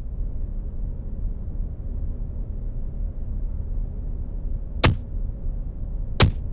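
Two sharp blows, about a second and a half apart, over a steady low rumble.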